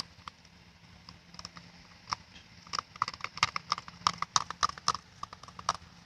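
Spoon stirring a thick slime mix of clear glue, water and shaving cream in its container, giving quick, irregular clicks and taps that are busiest in the middle.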